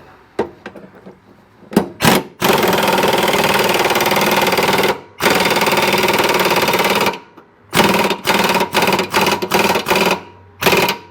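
Air impact wrench hammering as it tightens a mower blade nut. Two short blips, then two long runs of a couple of seconds each, then a string of short bursts near the end as the nut is run down tight.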